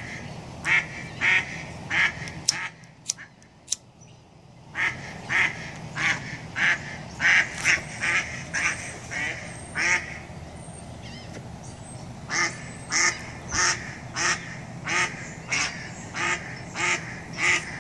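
A brown duck quacking over and over, about two quacks a second, with two short pauses. A few sharp clicks fall in the first pause.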